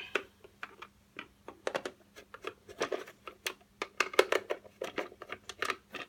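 Small screwdriver turning screws out of a hoverboard's plastic shell: a run of irregular sharp clicks and light scrapes of the metal tip in the screw heads.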